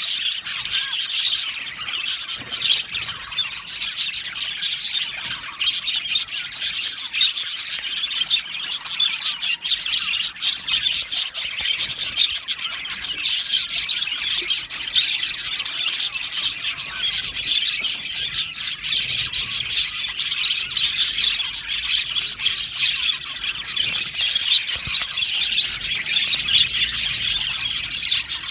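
A flock of budgerigars chirping and warbling together, a dense, continuous chatter of many overlapping short chirps.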